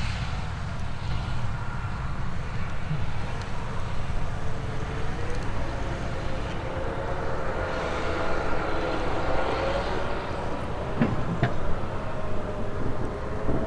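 Heavy harvest machinery running: a steady engine drone whose pitch wavers slowly, over a low rumble of wind on the microphone.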